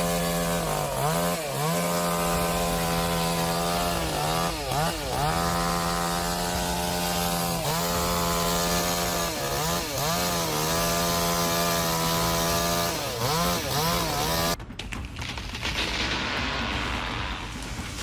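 Two-stroke chainsaw running at high revs, its engine pitch dipping sharply and recovering again and again. Near the end the saw drops out for a few seconds, leaving a quieter hiss, then comes back right at the end.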